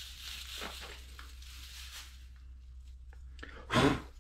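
A handful of curly metal lathe swarf crinkling and rustling as it is picked up and handled, dying away after about two seconds. Near the end there is a single loud, short crunch.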